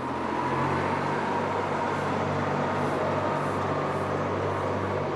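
A motor vehicle's engine running steadily, a low, even hum with a hiss over it.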